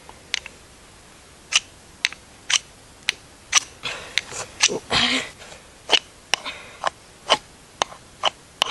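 Ferro rod (fire steel) scraped hard with a striker in quick repeated strokes, each a short sharp rasp, about two a second, starting about a second and a half in, with one longer, louder scrape near the middle. The strokes are attempts to throw sparks onto tinder to start a fire.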